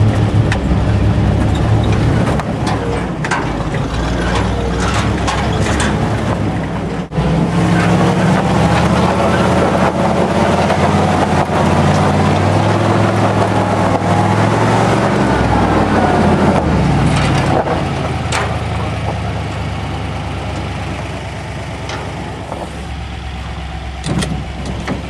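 Old 1950s Ford 4x4 pickup's engine pulling the truck up a rocky dirt trail, heard from inside the cab, with knocks and rattles from the truck bouncing over rocks. The engine pitch rises and falls through the middle, dips for an instant about seven seconds in, and eases off over the last several seconds.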